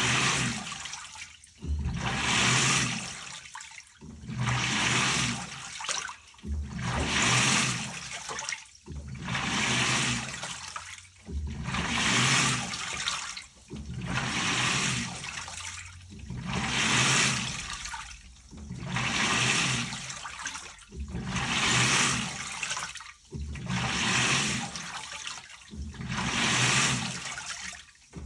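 LG Turbodrum WTR807 direct-drive top-loader washing machine agitating a load in water. The water swishes in regular surges about every two and a half seconds, each stroke starting with a low motor hum and separated from the next by a short pause.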